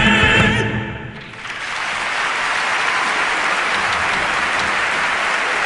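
A held final note of singing with instruments ends about a second in. Audience applause swells in after it and continues steadily.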